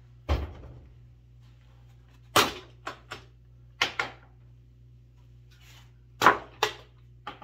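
Wooden boards being shifted and set down on a stack: a series of sharp knocks and clunks in small groups, the loudest about two and a half and six seconds in.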